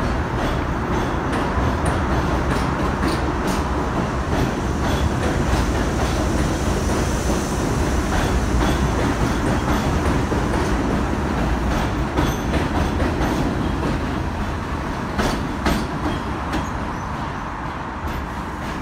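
R62A subway train running past close by: a steady, loud rumble from the cars with the wheels clacking over the rail joints, easing off over the last few seconds as the rear of the train pulls away.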